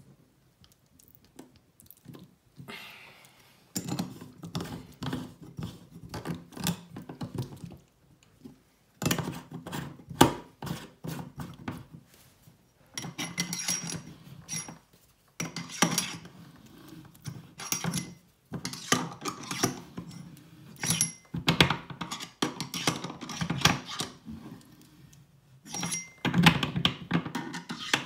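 Metal clinks, knocks and scrapes as the chrome parts of an Oras bathroom mixer tap are handled and worked loose with a screwdriver, coming in bursts of a few seconds with short pauses between, with brief light metallic rings now and then.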